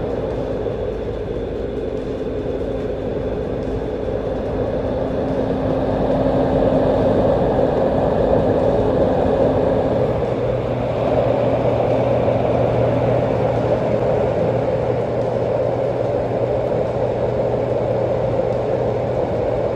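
Steady rushing noise with a low steady hum whose pitch drops about halfway through.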